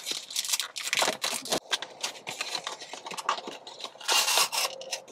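Cardboard perfume box being opened and the bottle inside its clear plastic bag slid out: irregular rustling and crinkling of paper and plastic, with a louder crinkle of plastic about four seconds in.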